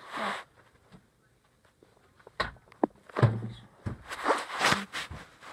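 Handling noise: a short rustle, a quiet stretch, then two sharp clicks about two and a half seconds in, a brief low sound, and more rustling.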